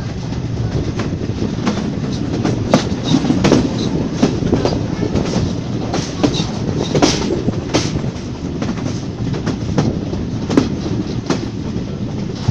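Wheels of a heritage passenger carriage running along the track: a steady low rumble with irregular sharp clacks over rail joints and points, the clacks coming thickest in the first half.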